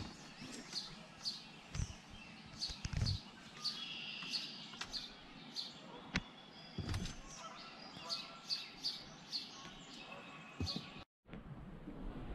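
Wild songbirds chirping and singing, a run of short high chirps about twice a second mixed with brief whistled notes. A few low thumps come through. The sound drops out briefly about eleven seconds in, and a steady hiss follows.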